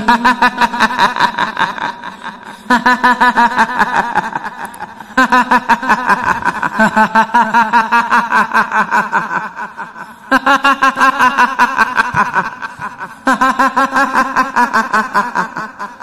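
A ghostly high-pitched cackling laugh, the kuntilanak's 'hihihi', in five bouts of quick pulsed syllables, about five a second, each bout lasting two to five seconds.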